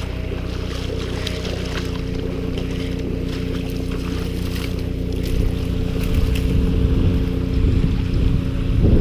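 Wind buffeting the microphone and dry reed stems rustling and crackling, over a steady low engine drone. The rustling and low rumble grow louder about halfway through as the reeds are pushed through.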